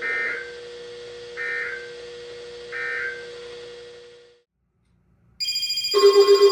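Three short SAME end-of-message data bursts, the two-tone digital chirps that close an Emergency Alert System broadcast, about 1.4 seconds apart over a steady electrical hum that fades out about four seconds in. After a second of silence, a new set of steady electronic tones starts, with a loud pulsing low tone joining near the end.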